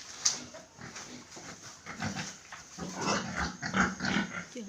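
Crossbred Landrace–Yorkshire pigs grunting and squealing irregularly in their pen, busier in the second half, with one sharp click about a quarter second in.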